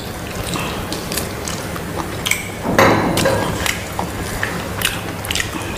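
Close-miked eating sounds: chewing and lip smacks as chicken curry and rice are eaten by hand, a run of many short wet clicks, with a louder noisy patch about three seconds in.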